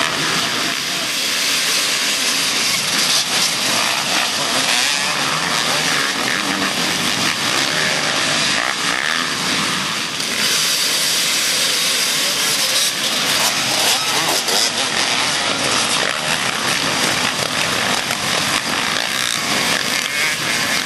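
Off-road race motorcycle engines running and revving on a dirt trail, with a dense steady rushing noise; the pitch wavers up and down a few times around the middle.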